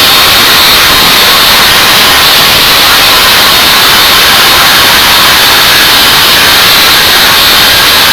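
Angle grinder with a cut-off wheel cutting the copper end windings off a compressor motor's stator, a loud steady grinding hiss that does not let up.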